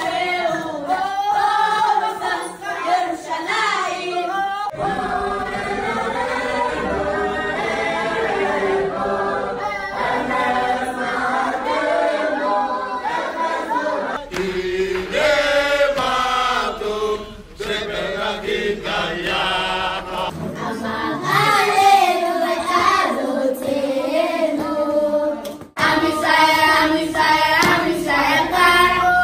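A group of people singing together in several short recordings cut one into the next, with changes about 5, 14 and 26 seconds in. The last part is children singing.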